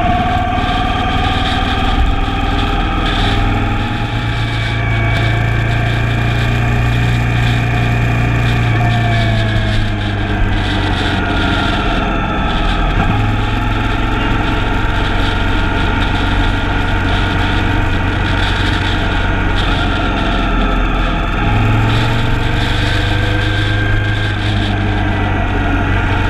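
Motorcycle engine running at a steady road speed, its pitch drifting slowly up and down, under a loud, steady rumble of wind on the microphone.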